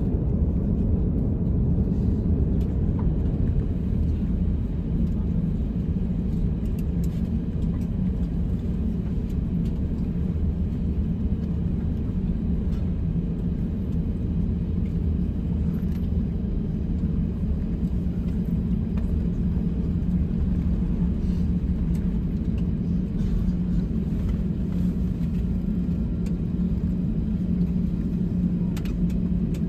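Steady low rumble with a constant hum, heard from inside a moving vehicle, with a few faint clicks.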